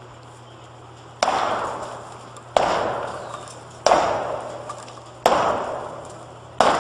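Heavy blows struck by hand at the base of a silo, five of them about one every 1.3 seconds, each a sharp hit that rings and fades away over about a second.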